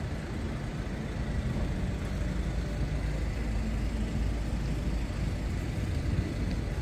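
City street ambience: a steady low rumble of motor traffic, swelling a little midway through.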